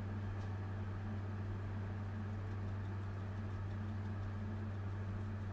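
Steady low electrical hum, even and unchanging, with a weaker higher tone above it and a couple of faint ticks.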